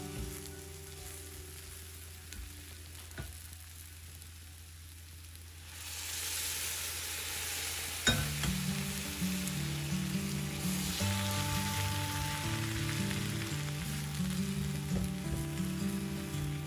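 Hot water sizzling as it hits roasted semolina (rava) in a hot pan while a silicone spatula stirs it into upma; the sizzling swells about six seconds in. Background music plays underneath.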